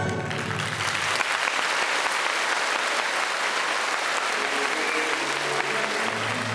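Audience applauding with a steady clatter of clapping. The orchestral music stops just as the clapping begins, and quiet low notes of the music come back in under the applause near the end.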